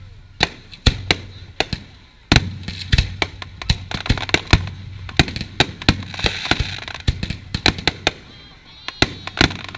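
Fireworks display: aerial shells bursting in rapid succession, several sharp bangs a second, with a loud report about two seconds in and a denser cluster of reports a little past halfway.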